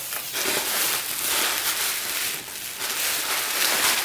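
Plastic bubble wrap and cardboard flaps crinkling and rustling continuously as a packed parcel is unwrapped by hand.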